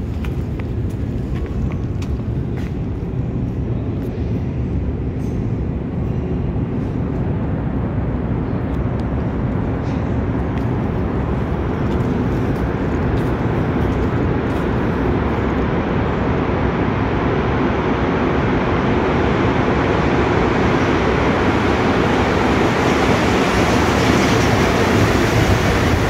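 Montreal metro MR-73 rubber-tyred train approaching through the tunnel and running into the station, a steady rumble and hiss that grows gradually louder and brighter, loudest near the end as it comes alongside the platform.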